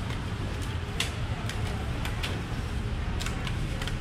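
Irregular light clicks and snaps of clear plastic clamshell fruit boxes being pressed shut and handled on a steel counter, over a steady low hum.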